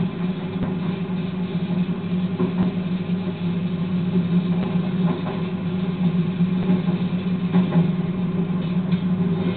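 Locomotive engine running at a steady, even note, heard from inside the driver's cab as the train rolls along the track.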